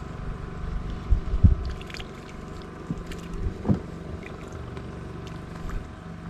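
Small boat engine idling steadily with an even hum, with a few light knocks around a second and a half in and again near four seconds.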